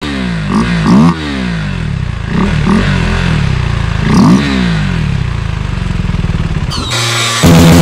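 KTM Duke 390's single-cylinder engine, fitted with a vented aftermarket airbox cover, idling with several quick throttle blips that rise and fall. Near the end a much louder, steadier engine sound cuts in abruptly.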